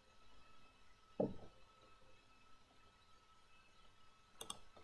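Near silence: room tone, with a faint short thump about a second in and a few soft clicks near the end.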